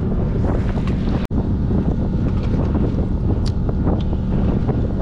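Steady low hum of a fishing boat's motor, with wind buffeting the microphone. The sound cuts out for an instant about a second in.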